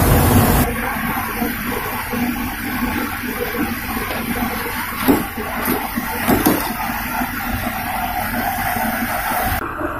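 Chicken sausage slices and French fries sizzling in a deep fryer's hot oil: loudest in the first half-second, then settling into steady bubbling with crackles. A couple of short knocks come about halfway through.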